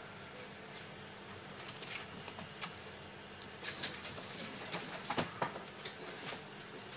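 Scattered light clicks and rustles of small objects being handled, starting about a second and a half in, over a faint steady room hum.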